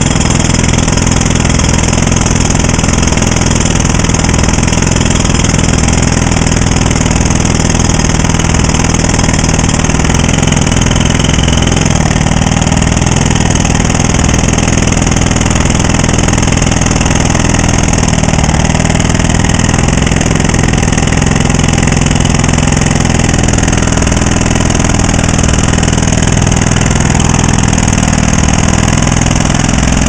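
Pneumatic jackhammer hammering steadily into concrete between saw cuts, a loud, rapid, unbroken chatter of blows that runs without pause.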